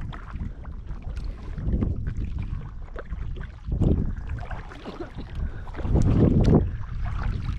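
Kayak paddling: paddle blades swishing through the water in a surge every couple of seconds, with light knocks and wind rumbling on the microphone.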